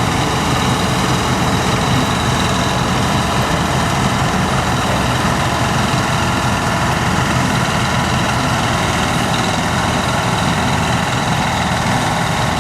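Heavy diesel farm machinery running steadily, an engine note under several constant high whining tones.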